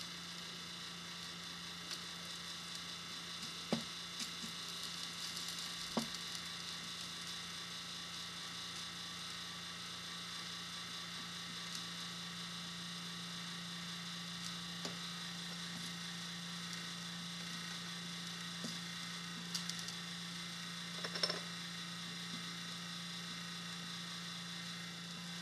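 Electric soldering iron melting solder on a small solder cross: a faint sizzle and hiss over a steady electrical hum, with a few light taps about 4 and 6 seconds in and a short cluster of them near 20 seconds.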